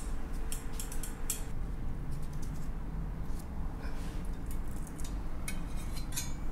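Metal utensils clicking and scraping against a grill plate and a ceramic platter as a whole cooked fish is moved across: a few light clicks in the first second or so and a quick cluster of clicks near the end, over a low steady hum.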